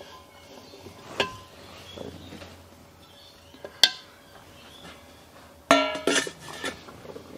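Metal engine parts and tools handled on a workbench: a few sharp knocks, then near the end a brief metallic ring followed by a short clatter as metal is set down.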